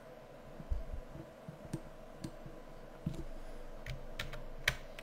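Scattered clicks of a computer mouse and keyboard as parts of a 3D model are selected and scaled, the sharpest click near the end, over a faint steady hum.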